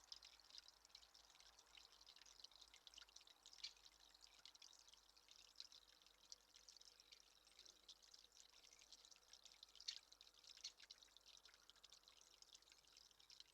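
Faint, steady pattering of water drips: many small ticks close together, a few louder ones standing out.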